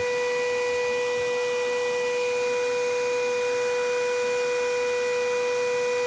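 A high-voltage Tesla-coil hairpin rig driving a microwave oven's AC fan motor gives off a steady, high-pitched hum with several overtones over a hiss. The pitch holds level throughout, and the fan is spinning.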